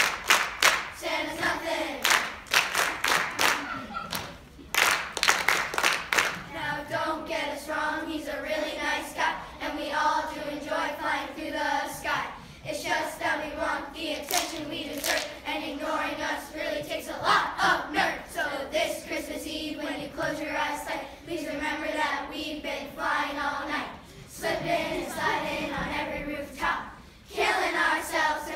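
Children's choir singing with hand clapping. The first six seconds or so are mostly rhythmic clapping, then long sung lines take over, with clapping still running under them.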